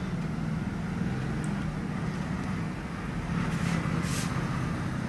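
Tailor's chalk rubbing along cloth against a wooden yardstick as a marking line is drawn, with a scratchy stroke about three and a half seconds in, over a steady low hum.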